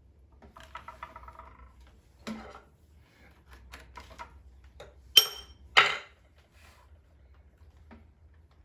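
Quiet handling of stitching thread and hand tools during hand inseaming of a shoe welt, then two sharp metallic clinks about five and six seconds in, the first with a short ring, as steel tools knock together. A low hum runs underneath.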